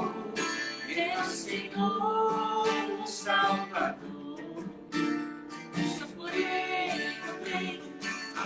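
Live acoustic band music: a strummed acoustic guitar with a voice singing the melody over it.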